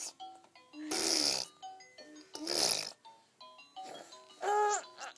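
Baby blowing raspberries, making farting noises with his mouth: two loud sputtering bursts about one and two and a half seconds in, then a short high vocal sound with a wavering pitch near the end, over a tinkly background melody.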